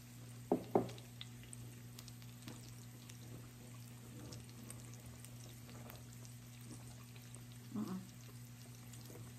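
Pork belly strips sizzling faintly on the griddle plate of a Hamilton Beach electric raclette grill, over a low steady hum. Two quick voice-like sounds about half a second in, the loudest moments, and another short one near the end.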